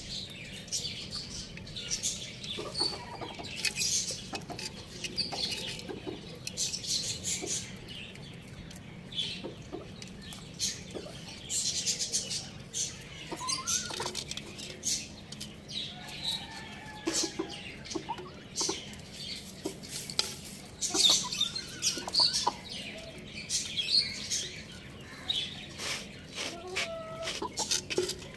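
Chickens clucking softly in short, scattered calls among many quick clicks and rustles from pecking and scratching at the ground and a clay pot.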